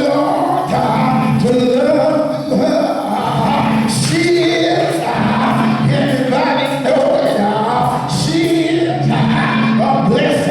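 Gospel singing: voices singing a church song together.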